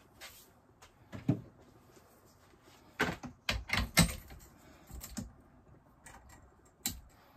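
Irregular knocks and clatter of a long-handled tool worked against the inside of an empty stainless steel brewing kettle, with a quick cluster of loud knocks about three to four seconds in and single clicks before and after.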